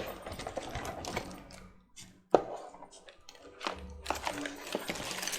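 Plastic computer keyboard keys clicking and rattling irregularly as the keyboard is handled, with one sharp knock a little over two seconds in.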